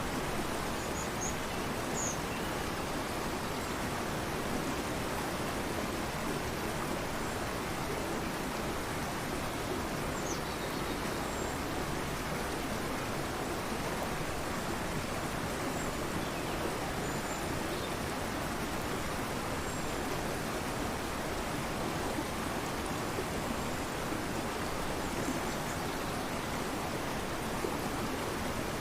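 Fast-flowing torrential river rushing steadily, with a few faint, high bird chirps scattered over it.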